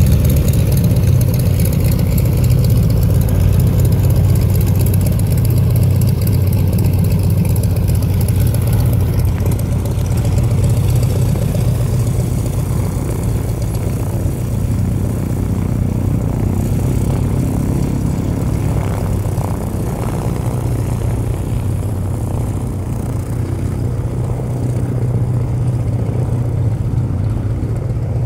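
1951 Cessna 195's seven-cylinder Jacobs radial engine running at low taxi power, a steady low drone with the propeller turning. It gets slightly fainter as the plane taxis away.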